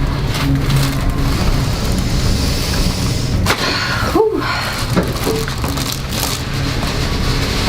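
A single sharp knock about three and a half seconds in, typical of a chiropractic adjustment thrust on a treatment table, followed at once by a short vocal sound that rises and falls, over steady background noise.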